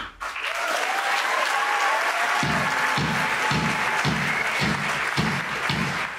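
Audience applauding. About two and a half seconds in, a steady low beat of about two thumps a second comes in underneath.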